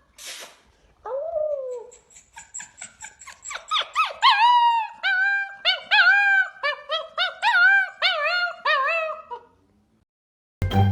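Wolfdog whining and yipping: one falling whine, then a long run of short high-pitched whines, each rising then falling, about two a second. Music starts right at the end.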